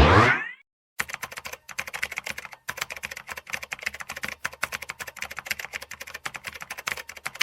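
Computer keyboard typing: a fast, uneven run of key clicks, about eight to ten a second, starting about a second in. Before it, a short sound rising in pitch dies away within the first half second.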